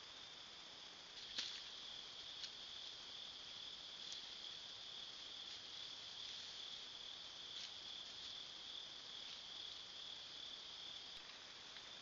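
Steady high-pitched chorus of night insects over faint recorder hiss, with a few short sharp clicks, the loudest about a second and a half in.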